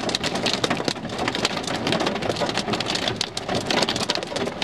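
Hailstorm: a dense, constant patter of hailstones and rain striking hard surfaces, with many sharp separate impacts.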